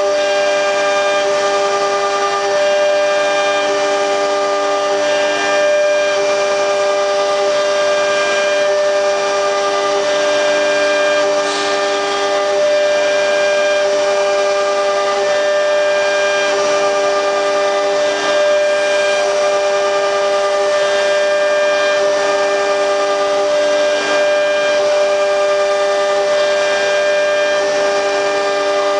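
QS6090 CNC router running steadily: a whine of several held pitches over an even hiss.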